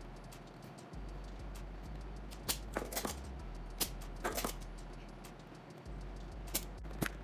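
Sharp clicks and taps of hand tools against an amplifier circuit board, coming in small clusters from about two and a half seconds in, over a low bass underneath.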